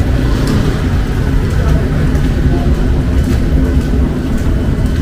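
Steady low rumble of city traffic on a wet street in the rain, with faint scattered ticks above it.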